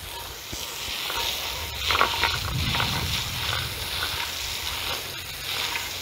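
Garden hose spray jetting water into a shallow bird bath bowl, a steady rush of spray and splashing as the muck is washed out, with the splashing heavier in the middle.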